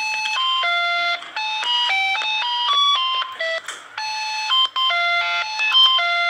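An ice cream seller's electronic jingle: a simple tune of beeping notes, each held about a quarter to half a second.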